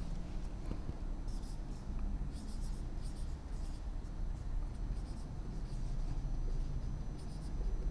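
Marker pen writing on a whiteboard: several short spells of scratchy strokes with brief pauses between, as numbers and words are written out.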